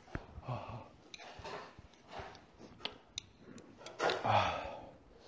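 A person eating spicy noodles: chewing and slurping, with light clicks and short breathy sighs, the loudest about four seconds in, from the heat of the spicy tteokbokki sauce.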